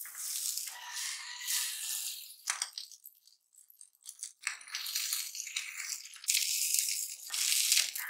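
Tortilla wrap sizzling on a hot ridged grill pan as it is laid down and pressed with a spatula. The sizzle starts suddenly, thins out in the middle and comes back louder near the end.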